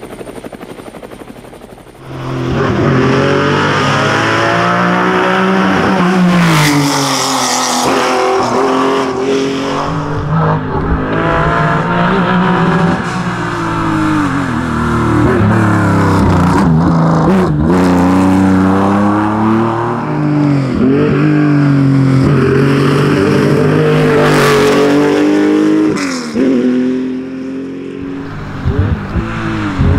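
Porsche 911 race car's air-cooled flat-six engine at full throttle on a hillclimb. It comes in loud about two seconds in, and its pitch climbs through each gear and drops back at every shift, over and over, with brief lifts off the throttle near the end.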